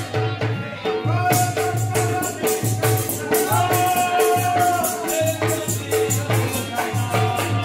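Live Pakistani folk music: a harmonium and a held, wavering melodic line over a steady, quick drum beat with rattling percussion.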